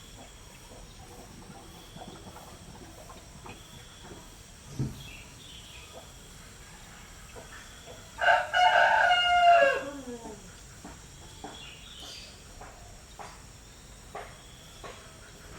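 A rooster crowing once, about halfway through, a loud call of about two seconds that falls in pitch at the end. Faint short chirps and clicks behind it.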